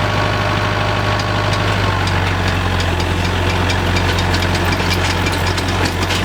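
An engine idling steadily with a deep, even hum, and a light rapid ticking joining in from about two seconds in.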